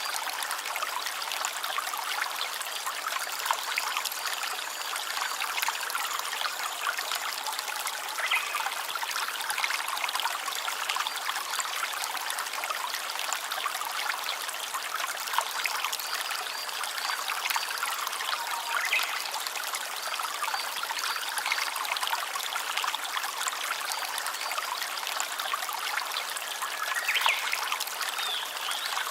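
A small stream trickling steadily, full of tiny splashes.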